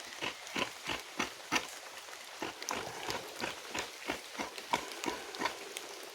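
Coconut being hand-grated on a scraper, with rhythmic rasping strokes at about three a second.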